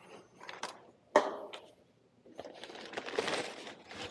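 Plastic-wrapped case of bottled water being handled and set down for delivery: a sharp knock about a second in, then crinkling and rustling of the plastic wrap.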